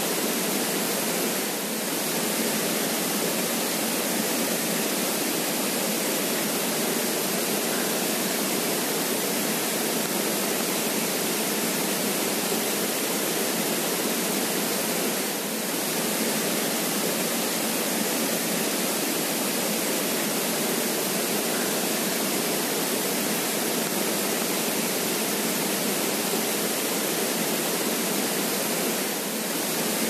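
Creek water running, a steady, even rush with no other sounds, dipping slightly for a moment about every 14 seconds.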